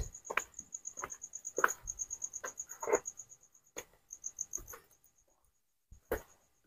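A cricket chirping in a fast, even pulse high in pitch, with irregular footsteps on a stone path.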